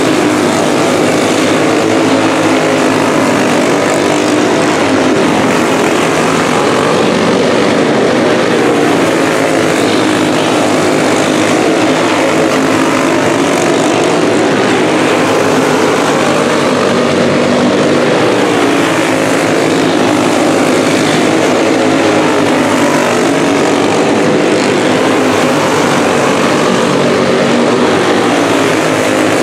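Several racing karts' small engines running hard around a dirt oval, making a continuous high-revving drone that rises and falls slightly as karts pass.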